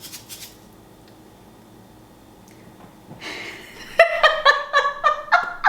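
A short soft rustling hiss, then a woman giggling in quick, high-pitched bursts.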